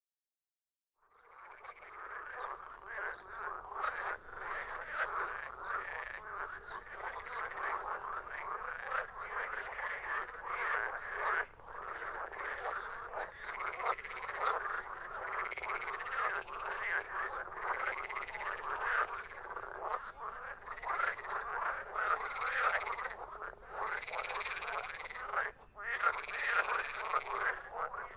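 A chorus of many frogs croaking, their calls overlapping densely and without pause. It fades in after about a second of silence, and higher chirps join in near the end.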